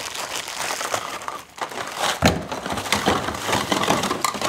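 A plastic bag full of PVC pipe fittings crinkling and rustling as it is handled, with the plastic fittings knocking together. There is one sharper knock about two seconds in.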